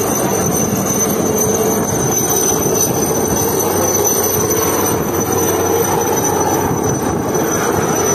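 Breaking surf: the steady, loud roar of waves crashing onto and washing over the rocks, with a thin constant high-pitched whine running over it.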